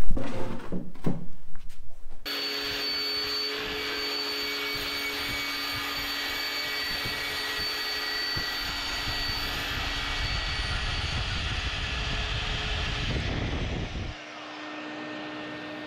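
Knocks and handling sounds, then an electric power tool's motor starts abruptly a couple of seconds in and runs steadily with a fixed whine for about twelve seconds. It cuts off suddenly near the end, leaving a quieter steady hum.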